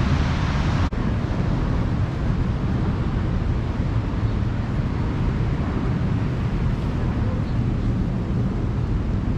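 Steady low rumble of wind buffeting the microphone over the wash of ocean surf, with a split-second dropout about a second in.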